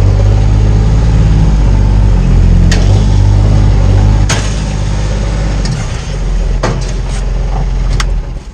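An engine running close by, steady with a shift in pitch a couple of times, with a few sharp clicks over it; it cuts off near the end.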